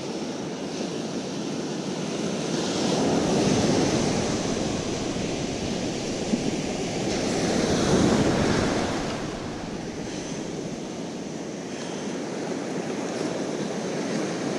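Surf breaking and washing up a beach: a steady wash of waves that swells twice, about three to four seconds in and again about eight seconds in, then eases off.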